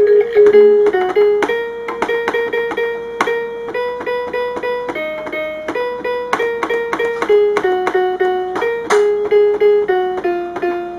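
VTech Discovery Nursery Rhyme Farm toy playing a nursery-rhyme melody through its speaker: an electronic tune of single notes, each with a sharp start, about two to three notes a second.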